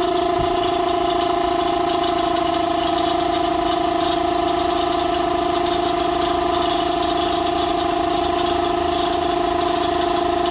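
Homemade belt-driven air compressor running steadily, its finned piston pump driven by a Bosch washing-machine motor: an even mechanical drone with a constant whine.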